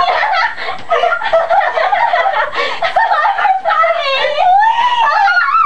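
Two girls laughing and shrieking in high, wavering voices, overlapping without a break.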